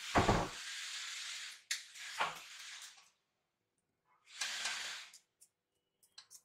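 Scissors snipping through fresh betel leaves, with the leaves rustling, in three spells with quiet gaps between. A low thump comes just after the start, and a few short clicks near the end.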